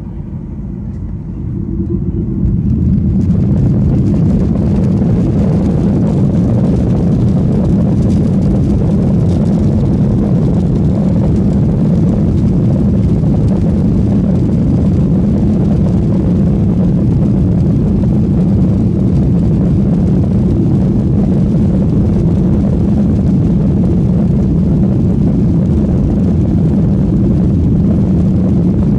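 Boeing 737-900's CFM56-7B turbofan engines spooling up to takeoff thrust, heard from inside the cabin: a deep rumble that rises over the first few seconds, then holds loud and steady through the takeoff roll.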